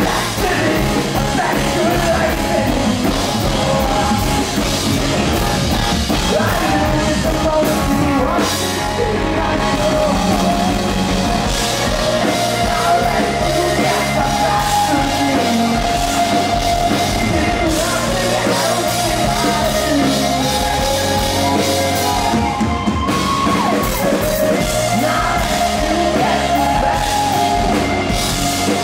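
Live rock band playing loudly: a male lead vocalist singing hard over electric guitar, bass guitar and drum kit.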